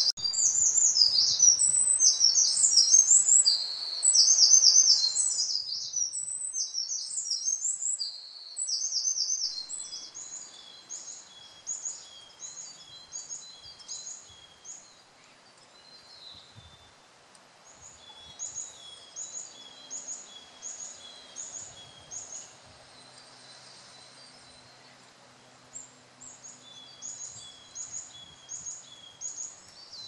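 Eurasian wren singing a loud, very rapid run of high trills for the first nine seconds or so. After that come quieter, evenly repeated high two-part notes, about two a second, in short runs, from a tit.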